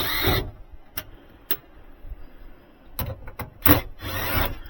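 Clicks, knocks and short scraping bursts of screws being worked out of a sheet-metal air handler access panel.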